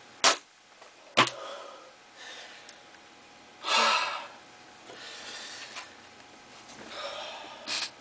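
Two sharp knocks about a second apart as things are set down on a table, followed by several short rushing noises of about half a second each.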